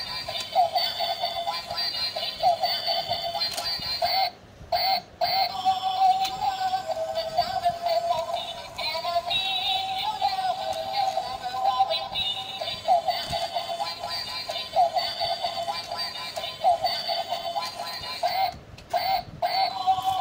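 Battery-powered dancing duck toy playing its electronic song through its small speaker, a thin tune with no bass. It breaks off briefly about four and a half seconds in and again near the end.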